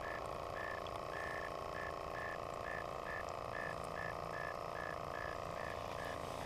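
Frogs calling at a pond: a regular series of short notes, about two a second, over a steady droning chorus.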